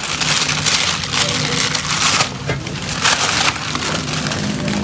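Plastic shopping bags and a cloth tote rustling and crinkling as they are grabbed and rummaged through, in several bursts.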